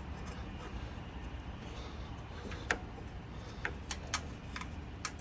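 A few light clicks and taps from handling the parts of a snowblower's belt drive during an inspection, over a steady low hum. The loudest click comes a little past halfway, and smaller ones follow near the end.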